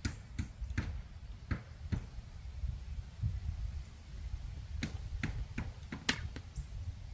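Irregular sharp clicks and light knocks from a hand tool being fitted and worked on a PVC well drop pipe, a few near the start and a quicker run of them about five seconds in, over a low steady rumble.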